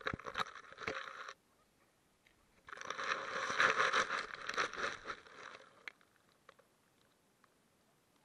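A small pet crunching and rustling close to the microphone: a short spell at the start, then a longer, louder one from about three to five and a half seconds in, followed by a few faint ticks.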